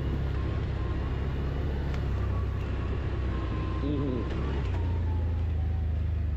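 Quad bike (ATV) engine running steadily under way with a faint high whine. The engine note rises a little about two-thirds of the way through.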